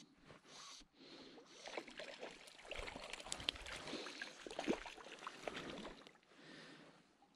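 Small hooked brown trout splashing at the surface of the loch as it is played in on a fly line, a run of irregular splashes loudest in the middle that dies away near the end.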